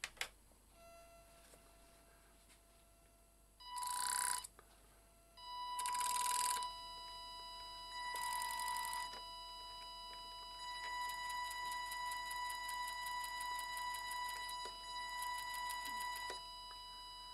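Model boat's electric drive motor run in short spells through its electronic speed controller: a high steady whine that starts and stops. There are two louder runs about four and six seconds in, then a longer whine with a fast pulsing through the second half.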